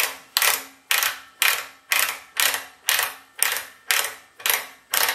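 Ratchet pawl in a hand pipe-threader handle clicking as the die head is twisted off a 3/4-inch galvanized steel pipe by hand: a steady run of sharp metallic clicks, about two a second, each ringing briefly.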